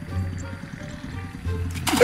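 Background music with a beat, then near the end a sudden loud splash as a person plunges into a shallow, muddy rice-paddy pool.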